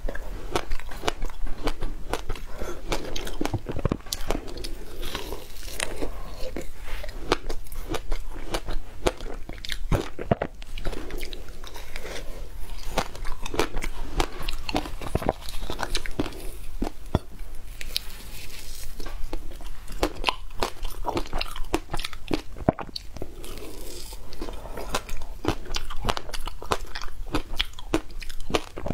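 Frozen ice being bitten and chewed, with many sharp, irregular crunches and cracks.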